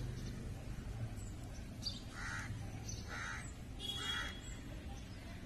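A crow cawing three times, about a second apart, over a low steady background rumble.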